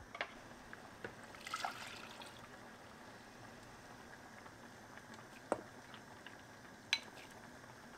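Quiet kitchen cooking sounds: a few sharp clinks, with a short liquid sound about a second and a half in.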